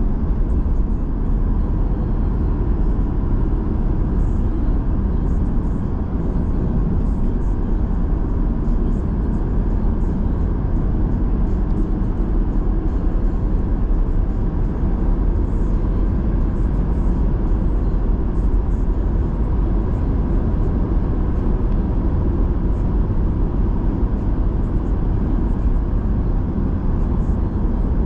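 Road noise from a car driving along a highway: a steady low rumble of tyres and engine that does not change.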